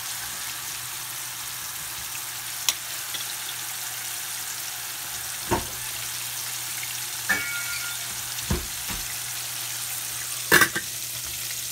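Steady sizzle of breaded basa fish fillets frying in hot oil. Over it, a utensil clinks and knocks sharply against a stainless steel pot of sautéing tomatoes about five times; one strike near the middle rings briefly, and a double knock near the end is the loudest.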